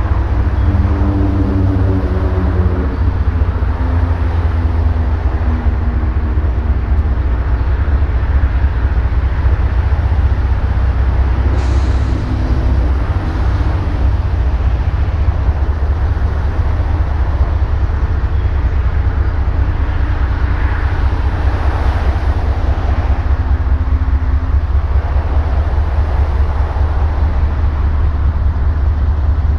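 Diesel locomotive engine running close by with a heavy, steady low rumble. Its pitch eases down a little in the first few seconds. There is a single sharp click about twelve seconds in.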